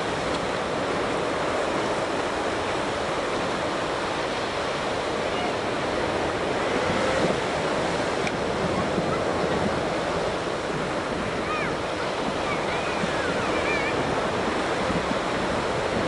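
Distant surf breaking on a sandy beach, mixed with wind: a steady wash of noise.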